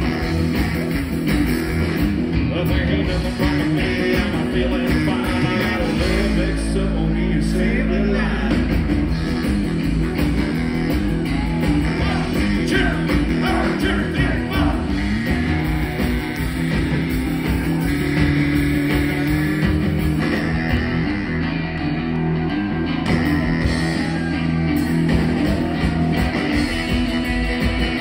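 A live rockabilly band playing: hollow-body electric guitar, saxophone, upright double bass and drums, with a lead vocal.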